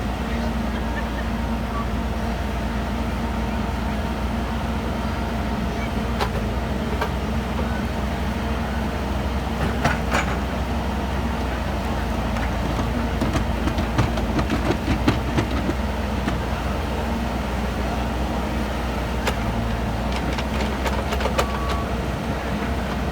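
Skid steer loader's engine running steadily, with scattered clanks and knocks from the machine working.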